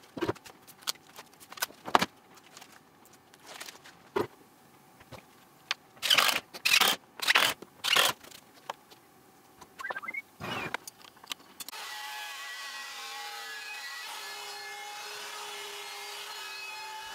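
Double-sided tape being pulled off its roll in several short loud rips, with small clicks of handling in between, as a board is taped down. About two-thirds of the way through it changes to a CNC-mounted Makita router running steadily with a Whiteside bowl bit, cutting a round bowl pocket in walnut.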